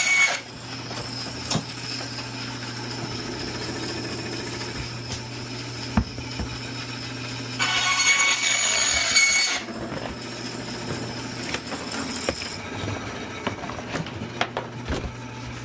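Bandsaw running with a steady motor hum while it cuts heavy cardboard. A loud, high-pitched rasp of the blade going through the cardboard stops just after the start and comes back for about two seconds around the middle, with a few knocks in between.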